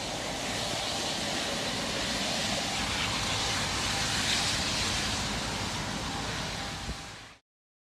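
Steady rushing noise with no tone or rhythm in it, swelling a little midway, then fading and cutting off suddenly near the end.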